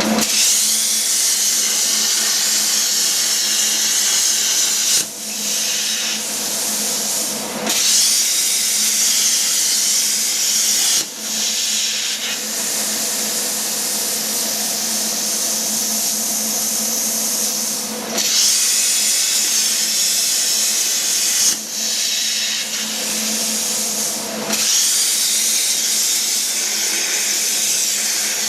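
CNC plasma cutter cutting steel flat bar: a loud, steady hiss with a hum underneath, briefly dipping about five seconds in, near eleven, eighteen, twenty-one and twenty-four seconds.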